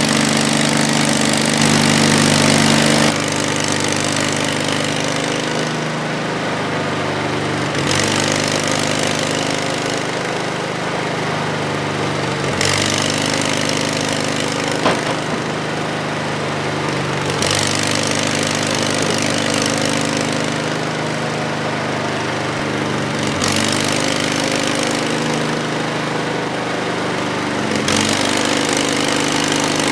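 Portable band sawmill's gas engine running steadily under load as the blade saws through a log cant, the high-pitched cutting noise swelling and fading every few seconds. The owner says the engine is running poorly and needs maintenance.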